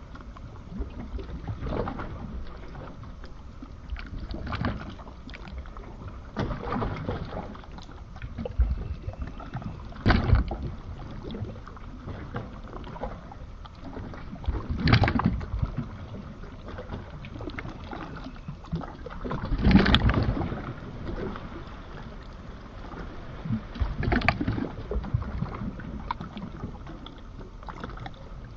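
Atlantic seawater: waves washing and surging every few seconds over a steady background rush, the biggest swells about 10, 15 and 20 seconds in.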